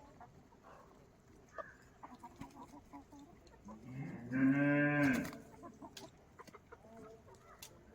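A single long, low moo, most likely a cow lowing, about four seconds in, with faint scattered clucks and chirps of chickens around it.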